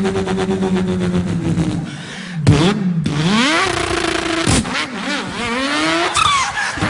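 A man imitating a revving car engine with his voice: a held engine drone that sinks away, then a run of rising revs cut by short breaks like gear changes.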